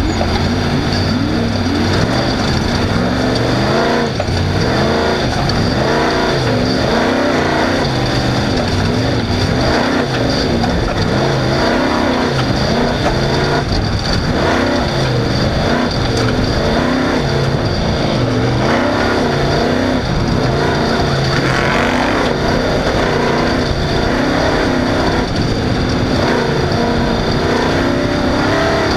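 Off-road race car's engine running hard under race conditions, its pitch rising and falling every second or two as the throttle comes on and off, over constant rattle and terrain noise.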